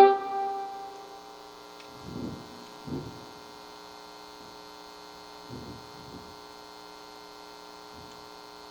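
Steady electrical mains hum through the mixer's audio chain, made up of many fixed tones. In the first second the tail of an effects-processed voice dies away. A few faint low thumps come about two, three and six seconds in.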